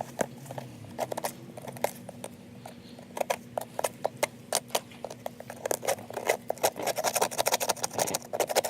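A hand tool chipping and scraping dried cement off a sneaker's sides: a fast, irregular run of sharp clicks and scratches that gets busier in the second half.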